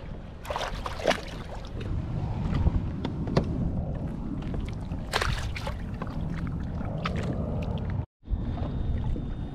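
Wind rumbling on the microphone and water sloshing against a kayak, with a few sharp splashes and knocks. The sound cuts out for a moment about eight seconds in.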